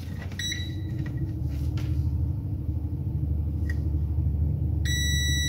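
Digital multimeter's continuity beeper sounding as its probes touch points on a modem board's phone-line input circuit. There is a brief faint beep about half a second in, then a steady high beep from near the end, the signal that the probed path is closed. A steady low rumble runs underneath throughout.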